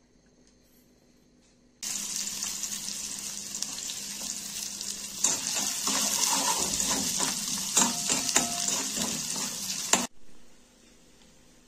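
Chopped onions sizzling in hot oil in a stainless steel pan, with a metal spoon scraping and clinking against the pan as they are stirred. The sizzle starts suddenly about two seconds in and cuts off abruptly near the end.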